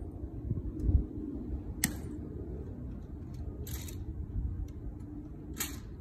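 Ceremonial guards working their rifles through the manual of arms: a sharp click about two seconds in, then two short swishes of hands and rifles. A steady low rumble runs underneath.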